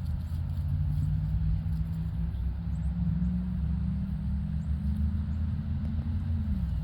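A motor vehicle's engine running with a steady low hum, its pitch edging up slightly and then falling away near the end.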